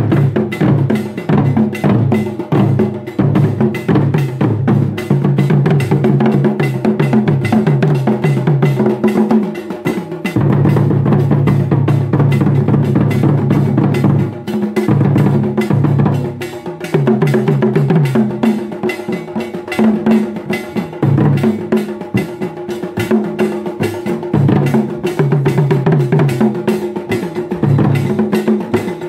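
Traditional Ghanaian drum ensemble playing a fast, dense rhythm on a pair of barrel drums and two tall drums beaten with sticks, with a few brief lulls in the middle.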